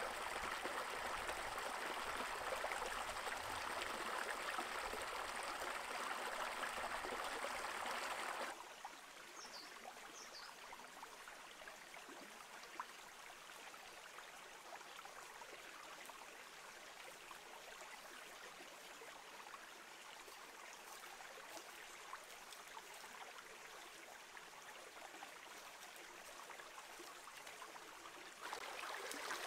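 Shallow rocky stream, water rushing and splashing over stones, heard as a steady noise. About eight seconds in it cuts to a much fainter, steady hiss with a couple of faint high chirps, and near the end the louder water sound returns.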